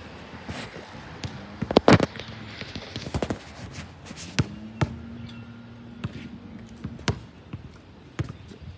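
Basketball bouncing on an outdoor hard court: a series of separate dribbles with gaps between them, the loudest close pair about two seconds in.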